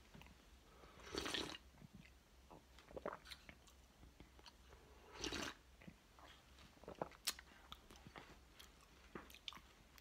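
Faint breath and mouth noises right at a phone's microphone: small scattered clicks and two short breathy swells about four seconds apart.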